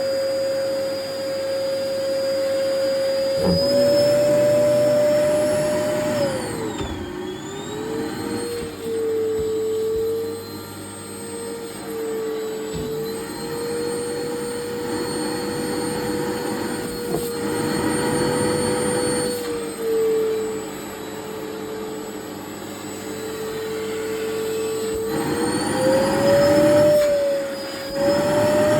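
Vacuum cleaner running with its floor nozzle removed, the bare suction opening working over clothes. The motor's steady whine drops in pitch about six seconds in and climbs back near the end, with rushing suction noise that varies as it moves over the fabric.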